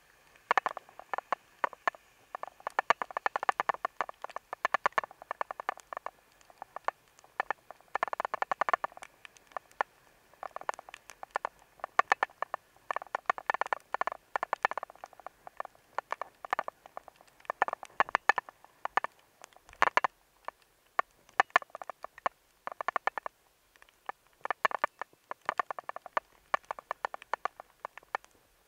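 Rapid, irregular clicking and tapping on a sealed waterproof action-camera housing, coming in dense clusters with short lulls; the case muffles nearly all outside sound.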